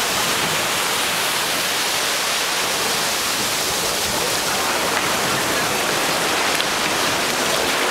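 Breaking surf washing and foaming in the shallows around a boat's hull and wading people's legs: a steady rush of water with no letup.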